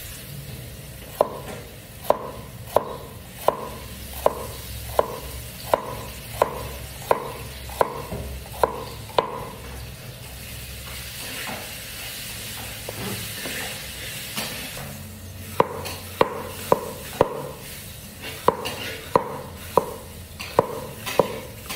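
Steel cleaver slicing bitter melon on a round wooden chopping block: a steady run of sharp knocks as the blade goes through and hits the wood, about one every 0.7 s. After a pause of a few seconds near the middle, a second run of slightly quicker knocks follows.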